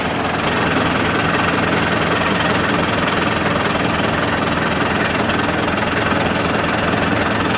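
Steyr 50 tractor's diesel engine idling steadily.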